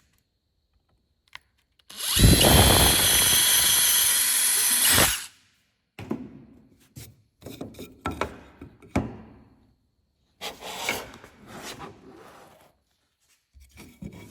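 Power drill boring the knob hole through a wooden furring strip, running steadily at full speed for about three seconds, then stopping. Scattered knocks and clatter of tools and wood being handled follow.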